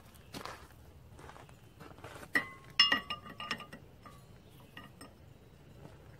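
Hammer blows on a steel punch set against the gib key in a flywheel hub, starting a little over two seconds in: one sharp strike, then a quick run of several more, each ringing out metallically, followed by a few lighter taps. The blows are driving out the rusted gib key to free the flywheel from the crankshaft.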